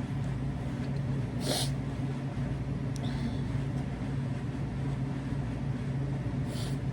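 A steady low background hum, with a person sniffing once, briefly, through the nose about a second and a half in.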